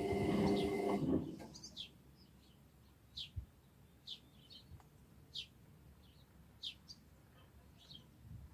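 Indesit washing machine running with a steady hum that cuts off suddenly about a second in. After it, a bird gives short high chirps about once a second.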